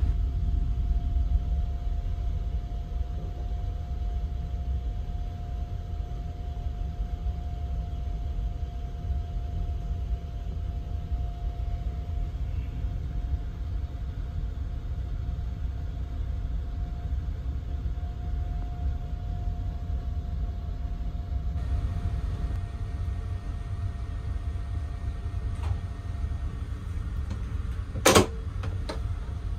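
Steady low rumble and hum inside a 285-series sleeper train compartment, with a faint steady tone over it for most of the time. Near the end comes one sharp click as the compartment door's lock lever is worked by hand.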